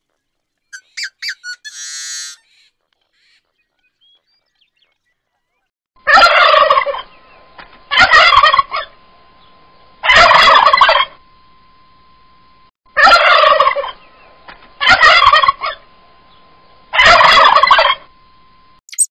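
Domestic turkey toms gobbling: six loud gobbles about two seconds apart, each just under a second long. Before them, a small bird gives a few short chirps and a brief rattly trill.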